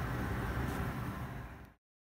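Steady rushing background noise with a low rumble, cutting off abruptly near the end.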